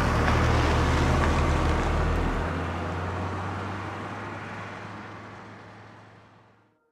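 A van's engine and road noise as it drives off, fading steadily over about six seconds until it is gone. The deepest rumble drops away about two and a half seconds in.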